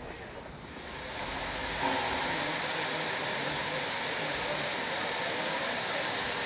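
Durango & Silverton K-36 steam locomotive No. 482 standing and venting steam: a loud, steady hiss that swells in over the first two seconds and then holds.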